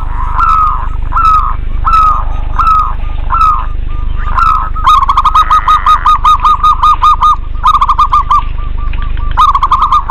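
Zebra doves (perkutut) cooing. First comes a run of short drooping coos about every 0.7 s. From about five seconds in comes a fast staccato string of coos, about six a second, and two shorter quick bursts follow near the end. A steady low hum lies under the calls.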